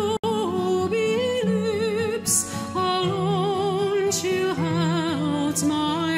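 Background music: a slow song with a sung vocal line, its long held notes wavering with vibrato over sustained accompaniment. The sound cuts out for an instant just after the start.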